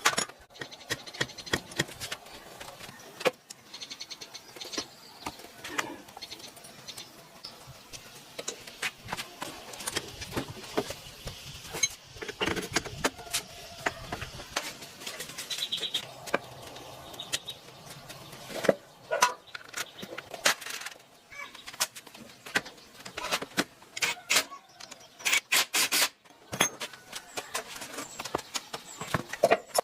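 Scattered light metallic clinks and taps from tools and parts being handled, with a quick run of clicks about 25 seconds in.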